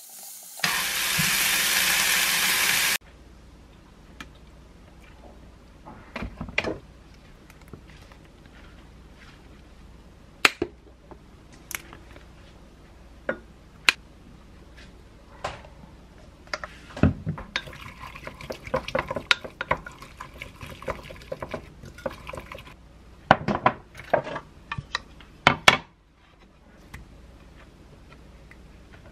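Chicken breast sizzling loudly in a frying pan for the first few seconds, cut off suddenly. Then a wooden spoon clinks and taps against a glass bowl in scattered strokes, busiest in the middle, as a dressing is mixed.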